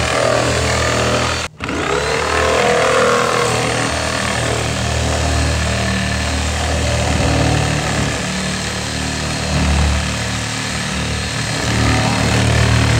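Handheld electric power saw cutting into the plastic top of an IBC tote, a steady motor noise with the blade rasping through the plastic. It cuts out for a moment about a second and a half in.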